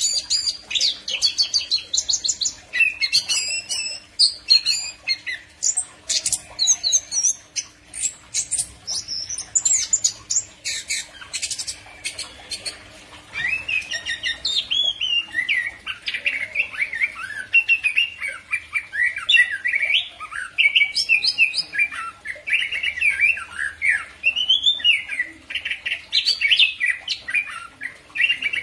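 Chestnut-capped thrush singing a long, unbroken song of quick, varied phrases. The first half is higher, with rapid short notes. From about halfway the song turns to lower, gliding phrases.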